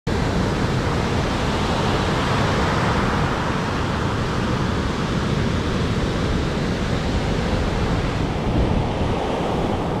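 Steady rushing noise of sea surf, mixed with wind.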